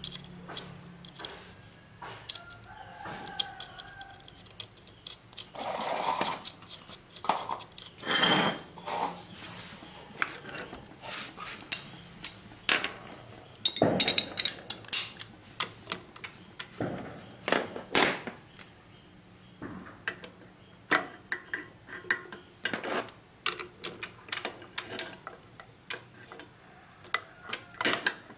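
Irregular metallic clicks and clinks of hand tools and bolts as the engine side-cover bolts are fitted back in, with a socket ratchet being worked near the end.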